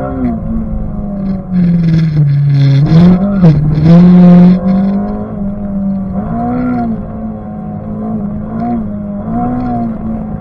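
Honda K20 four-cylinder engine in a swapped VW GTI running hard, its pitch mostly steady. It drops deeply about two seconds in and climbs back, and several shorter dips and rises come later, with a loud rushing noise over it between about two and four and a half seconds.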